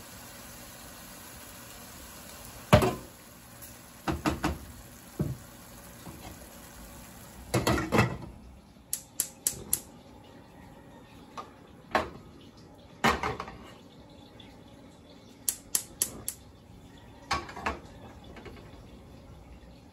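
Cookware clanking on a gas stove: a glass lid set on a stainless-steel sauté pan and a black frying pan set down on the burner grates, a dozen or so knocks and clatters, some in quick runs. A steady hiss underneath stops about eight seconds in.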